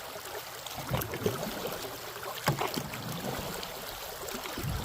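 Canoe being paddled: water swishing and dripping off the paddle, with two sharp knocks, about one and two and a half seconds in.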